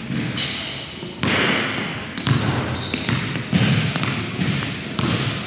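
A basketball being dribbled on a gym floor, irregular echoing bounces as the ball handler works against a defender, with short high sneaker squeaks on the floor.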